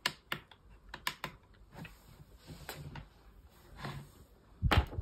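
Irregular light taps and clicks of a pen on a plastic light-up drawing tablet, with a louder knock near the end.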